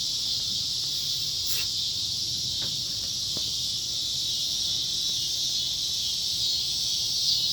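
Steady, unbroken chorus of insects, a constant high-pitched shrill, with a few faint clicks in the first half.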